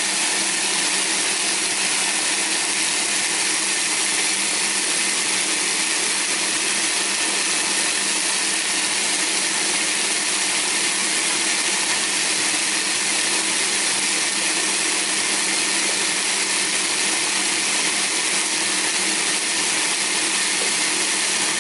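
Countertop blender motor running steadily at full speed, grinding roasted yellow split peas into flour: a dense hiss of the churning peas over an even motor hum.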